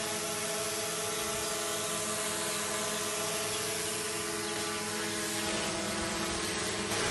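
DJI Mavic Pro quadcopter hovering, its propellers giving a steady buzzing hum made of several steady tones over a hiss. The tones shift to a different set about five and a half seconds in.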